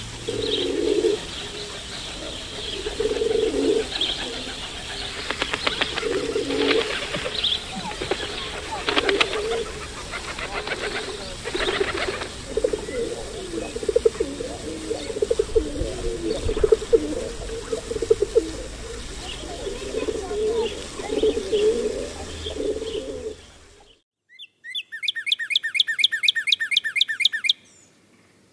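Feral pigeons cooing in repeated low phrases, with bursts of wing flapping as birds take off and land. Near the end the sound switches to a northern cardinal's quick trill of rapid repeated high notes, lasting a few seconds.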